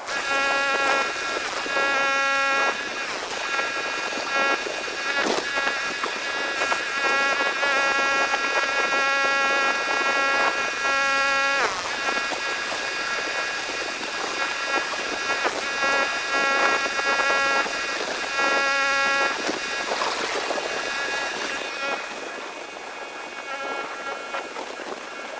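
Spray rig pump whining at a steady pitch, cutting in and out several times, over the hiss of a chemical spray-down of bleach, water and surfactant. The hiss eases off a few seconds before the end.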